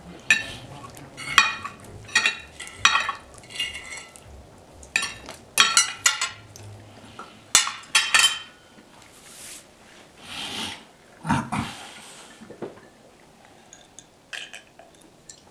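Steel knife and fork clinking and scraping against a ceramic plate: a rapid run of sharp, ringing clinks over the first eight seconds, then a few softer scrapes and a knock as the cutlery is set down together on the plate.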